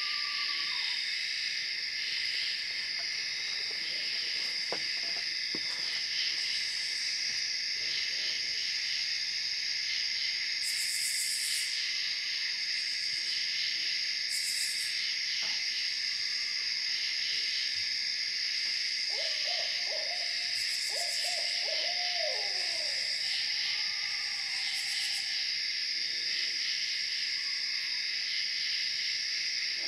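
Two owls calling back and forth in hoots and wavering calls, busiest about two-thirds of the way through. Behind them runs a steady, high-pitched chorus of night insects.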